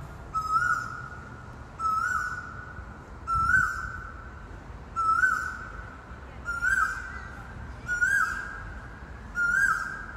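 A hidden bird calling a loud whistled note over and over, seven times, about every one and a half seconds: each call steps up briefly and then holds a long, level 'howl'. The bird is one the uploader is unsure of and that a colleague calls a black oriole.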